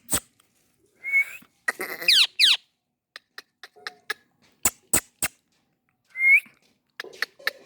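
Indian ringneck parakeet calling: a short rising whistled note about a second in and again near the end, and a burst of quick falling screeches around two seconds in. Sharp clicks are scattered in between.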